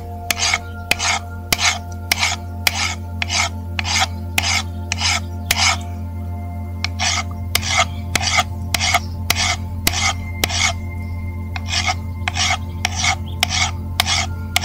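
Hand file rasping across a two-stroke motorized-bike piston in regular strokes, about two to three a second, with a short pause just after the middle. The piston is being filed down where marked to give better exhaust flow.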